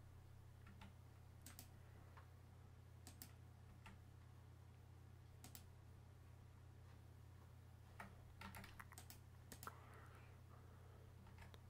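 Faint, scattered clicks of a computer keyboard and mouse, about a dozen, bunched more closely in the latter half, over a low steady hum.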